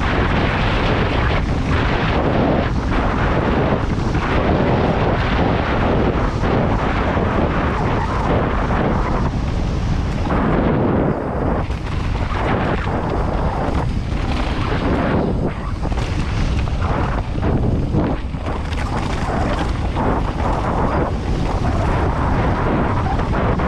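Loud, steady wind rush on the ride camera's microphone, mixed with a mountain bike's tyres rolling fast over a downhill trail. It eases briefly about halfway through.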